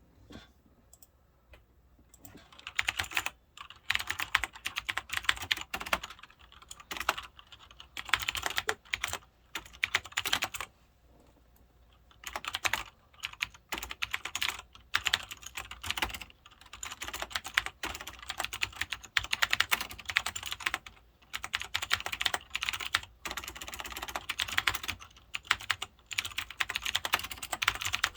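Typing on a Cherry G80-3000 mechanical keyboard with clicky Cherry MX Blue switches: rapid runs of keystrokes starting about two seconds in, with a pause of a second or so near the middle.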